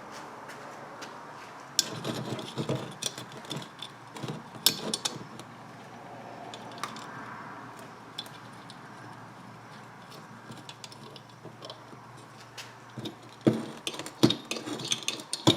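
Metal clinks and knocks from steel parts and tools being handled on a workbench, in two clusters: one a couple of seconds in and one near the end, with a quieter stretch between.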